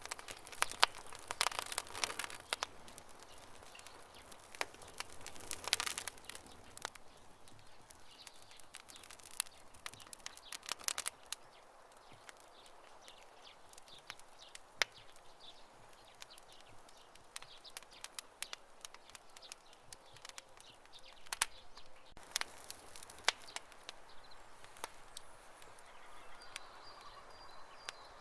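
Wood campfire crackling, with scattered sharp pops and snaps that come in thicker bursts a few times, over a low steady hiss.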